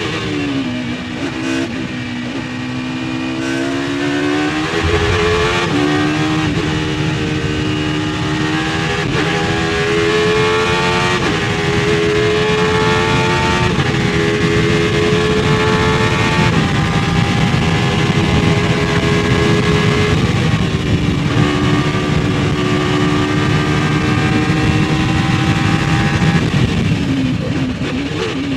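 Courage C60's 4-litre naturally aspirated V10 heard onboard at racing speed: the revs drop briefly at first, then it accelerates up through the gears, the pitch climbing and dropping back at each upshift. It holds high revs for a long stretch with a short dip, then falls away near the end as the driver lifts and downshifts.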